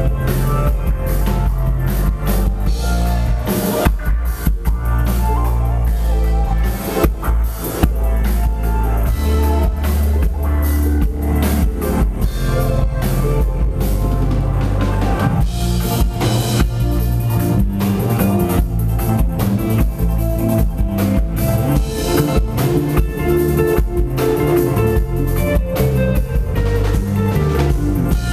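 Live band playing loud instrumental music, with a drum kit keeping a steady beat under deep bass, keyboard and guitar.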